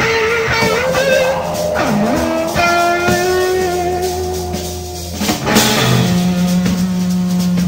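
Live blues-rock band playing an instrumental passage: long, bending lead notes over bass and drums.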